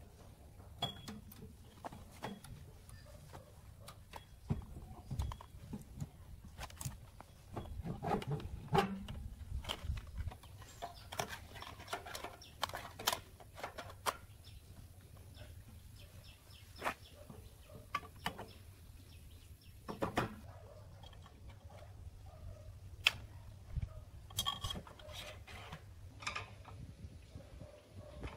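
Irregular metal clicks and knocks from handling electric-motor parts as the motor is reassembled: the rotor is slid into the stator housing and the end cover is fitted onto the shaft bearing. A low steady rumble runs underneath.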